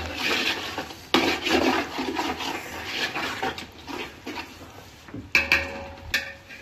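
Ladle stirring and scraping through thick masala in a large metal pot, in irregular strokes, with a couple of sharper knocks against the pot near the end.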